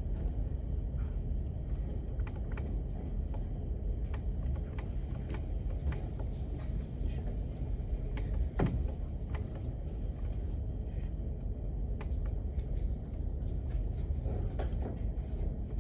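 Scattered clicks of computer keyboard typing over a steady low rumble, with one louder knock about eight and a half seconds in.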